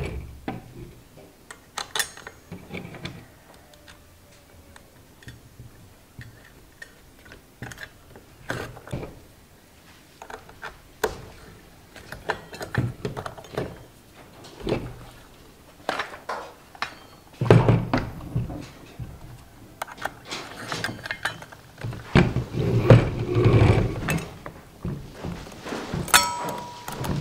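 Scattered metal clicks, clinks and knocks of an L-shaped wrench on a circular saw blade's arbor nut as the blade is fitted to a trimmer head and handled by hand. The handling gets busier about two-thirds of the way through, with a short metallic ring near the end.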